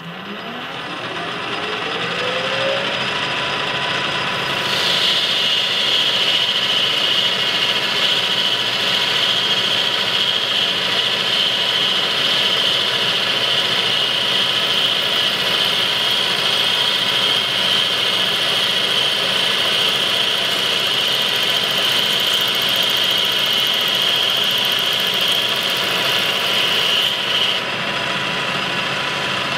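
Metal lathe spindle coming up to speed, its whine rising over the first few seconds, then a tool turning 316 stainless steel bar: a steady cutting noise with a high ringing tone that starts about five seconds in and stops suddenly near the end.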